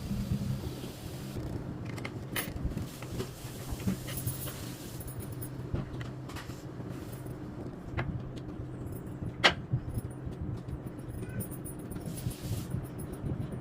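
Scattered light clicks and knocks from handling parts and packaging, with one sharper click about nine seconds in, over a steady low hum.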